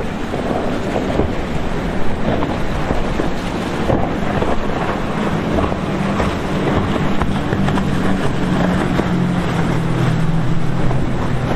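Powerboat engine drone over wind buffeting the microphone and rushing water. A steady engine hum comes up about halfway through and grows stronger toward the end.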